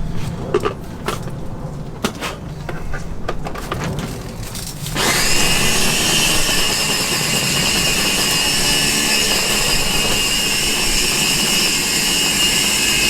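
A few clicks and knocks, then about five seconds in an electric blender starts and runs steadily, blitzing the marinade ingredients.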